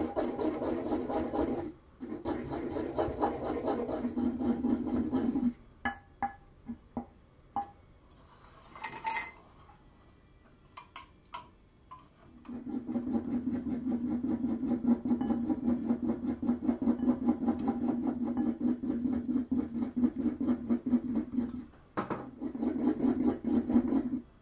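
Wooden surikogi pestle stirring fast in a ceramic suribachi mortar, a dense steady scraping and rubbing as grated nagaimo yam is whipped to a fluffy, airy paste. The mixing stops for several seconds, with a few light clicks and a glassy clink while dashi is added from a glass, then starts again about halfway through.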